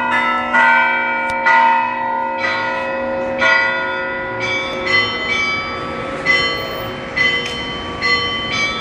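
Several church bells struck in turn, each strike sounding a different note that rings on under the next. Strikes come about once a second at first and closer together near the end.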